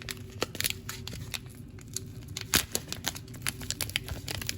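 Kitchen handling noises while seasoning food: irregular clicks, taps and short rustles, with one sharp knock about two and a half seconds in, over a steady low hum.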